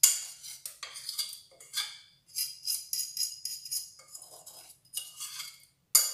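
A metal utensil scraping and clinking against a bowl in short, irregular strokes as thick arbutus fruit purée is scraped out into a saucepan.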